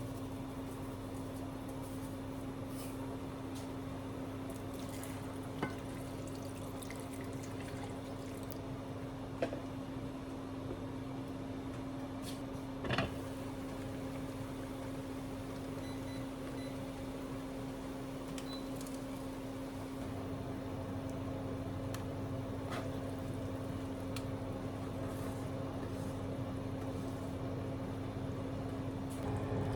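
Steady electrical hum of a kitchen appliance running, with a few light clicks and knocks.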